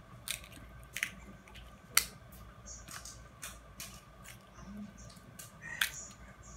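Crab leg shells being cracked and snapped open, a series of sharp cracks and clicks at uneven intervals, the loudest about two seconds in.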